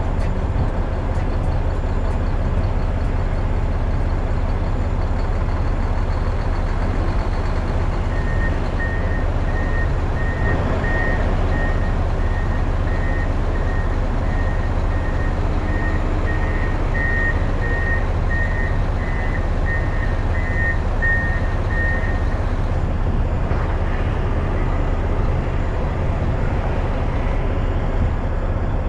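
Mack Pinnacle semi truck's diesel engine running with a steady low hum. A reversing alarm beeps at a regular pace, starting about a quarter of the way in and stopping about three quarters through.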